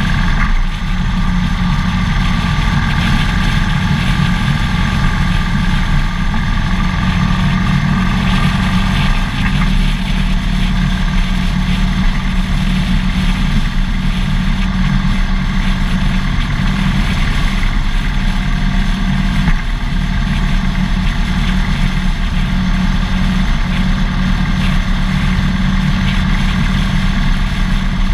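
Harley-Davidson Dyna Fat Bob's V-twin engine running steadily at low revs, heard up close from a camera mounted on the bike.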